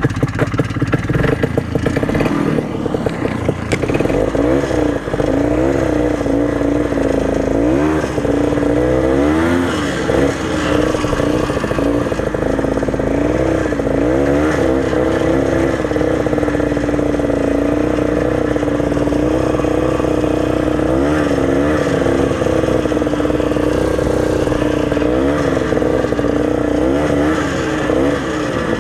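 Old Ski-Doo snowmobile's two-stroke engine running under way, coming in suddenly and then holding a loud steady drone whose pitch rises and falls again and again as the throttle is worked.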